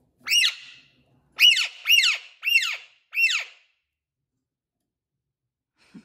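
Alexandrine parakeet giving five short, high calls: one, then after a pause a quick run of four, like a ha-ha-ha laugh. Each call rises and then drops sharply in pitch. It is the bird's mimicked laugh.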